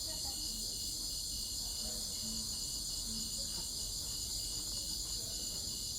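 Crickets chirping in a steady, high-pitched trill, with a fainter chirp pulsing several times a second underneath.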